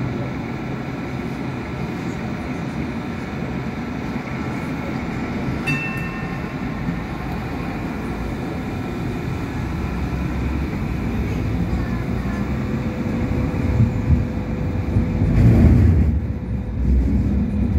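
Hong Kong Light Rail first-generation car running, heard from inside: a steady rolling and motor noise. A brief high squeal comes about six seconds in, and the noise grows louder near the end.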